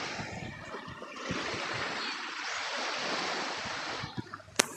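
Small sea waves breaking and washing up a sand beach, the rush of surf swelling and ebbing. A single sharp click near the end.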